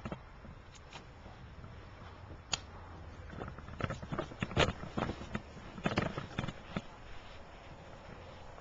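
Airsoft gunfire: scattered sharp snaps, coming thicker and quicker in the middle.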